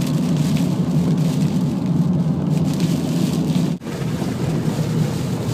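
Car driving fast, with steady engine and tyre noise heard from inside the cabin and a light patter over it. The sound cuts out for an instant just under four seconds in.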